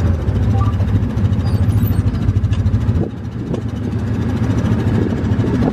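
UTV (side-by-side) engine running with a pulsing low rumble, easing off briefly about halfway, then picking up again.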